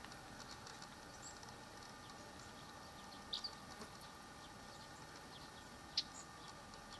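Faint outdoor ambience: a few short, high chirps of small birds, the sharpest about six seconds in, over a faint steady hum.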